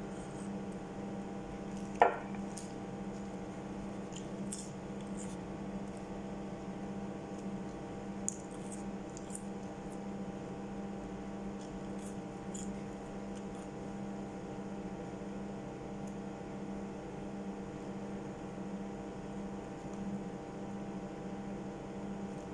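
Steady electrical hum from a kitchen appliance throughout. About two seconds in there is a single sharp knock of a ceramic mug set down on the table, and after it come faint scattered clicks of chewing and finger-eating fries.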